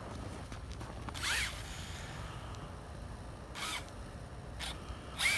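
Electric motor of a remote-control Monster Jam Megalodon toy truck whirring in four short spurts as the throttle is blipped, its wheels spinning in the snow.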